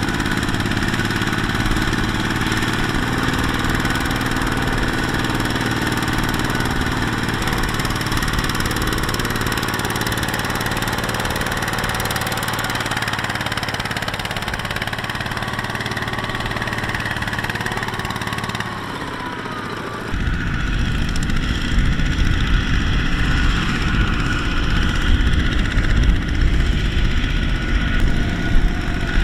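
Single-cylinder diesel engine of a two-wheel walking tractor running steadily while hauling a trailer of rice sacks through mud. About two-thirds of the way in, the sound switches to another such tractor engine, louder, lower and rougher.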